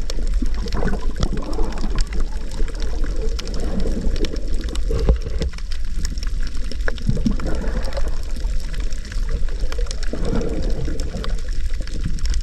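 Water sloshing and gurgling around a snorkeler's camera, over a steady low rumble and scattered small clicks.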